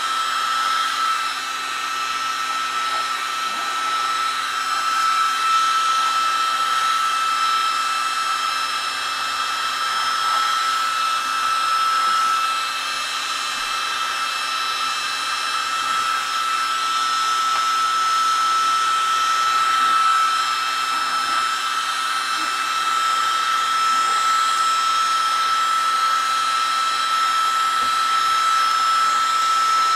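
Electric heat gun running steadily: its fan blows with an even rush and a constant high whine, used to soften old paint for scraping off with a putty knife.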